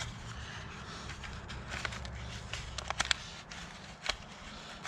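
A handful of short, light clicks and taps from hands handling small parts, clustered between about two and four seconds in, over a low steady hum that fades about three seconds in.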